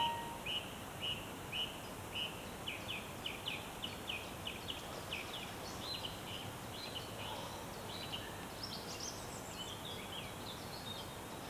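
Songbird singing faintly: a run of short, high, falling notes, about two a second at first and then quicker, over a steady hiss of outdoor background noise.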